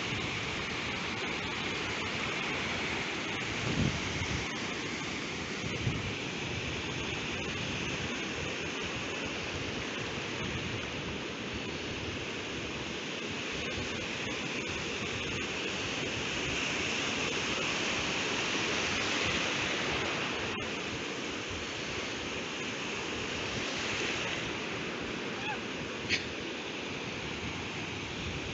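Ocean surf washing steadily onto the beach, swelling a little about two-thirds of the way through. Two soft thumps come in the first few seconds, and a short sharp tick comes near the end.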